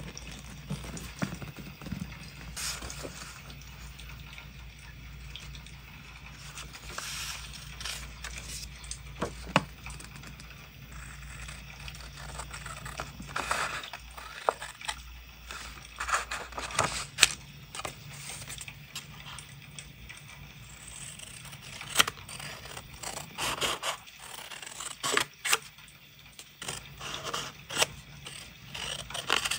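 Scissors cutting through printed paper, with sharp snips scattered throughout and rustling, scraping paper sounds between them.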